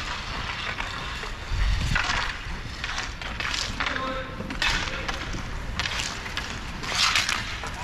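Roller hockey play: skate wheels rolling and scraping on the rink surface, with a run of sharp clacks and scrapes from sticks and puck, and a thud about a second and a half in.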